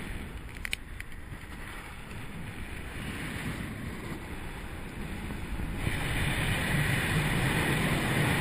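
Wind rushing over the microphone of a camera carried aloft while parasailing, a steady rush that grows louder about six seconds in.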